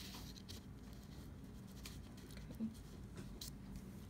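Faint pencil strokes on paper as lines are drawn along a ruler, with a few light ticks of handling.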